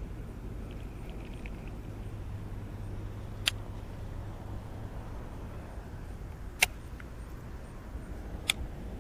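Baitcasting reel giving three sharp clicks, a few seconds apart, as it is worked through a cast, over a steady low background rumble.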